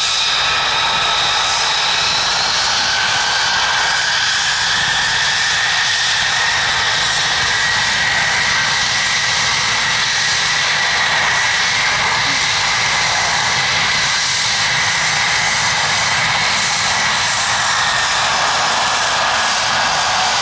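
Two F-35A Lightning II fighters taxiing, their single Pratt & Whitney F135 turbofans at taxi power: a loud, steady jet rush with high-pitched whining tones, one whine rising slightly a few seconds in.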